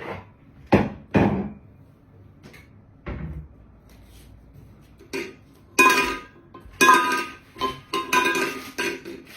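A few separate knocks, then from about six seconds in a run of clattering with ringing metallic tones, like kitchenware being handled.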